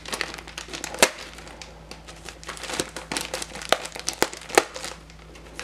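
Plastic poly mailer crinkling and crackling as a serrated knife cuts into it. Irregular sharp crackles, the loudest about a second in and another run near the end.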